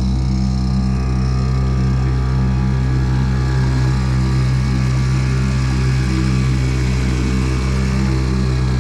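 Boat's outboard motor running at a steady cruising speed, a constant drone.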